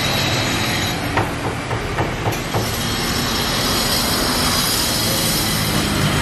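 Road traffic running steadily, with a high squeal over the rumble. A few sharp clicks come between about one and two and a half seconds in.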